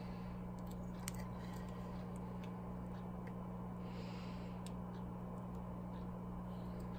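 Faint handling noise: a few small clicks and a brief soft rub as fingers press a small ESC board and its wires into place, over a steady low electrical hum.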